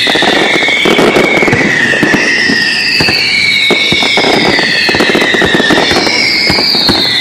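Fireworks going off in a dense barrage of bangs and crackles, with high falling whistles that come back about every two seconds.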